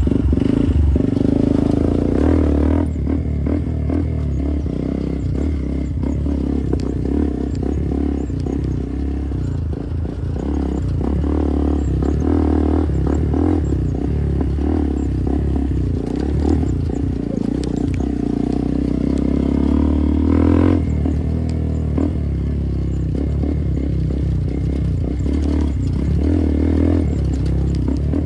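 Motorcycle engine running while under way, its note rising and falling a little with the throttle, with some clattering from the bike.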